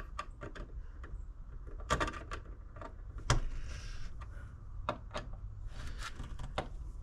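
Irregular small clicks and taps of a screwdriver turning screws on metal electrical wiring hardware, with louder clicks about two seconds and about three seconds in.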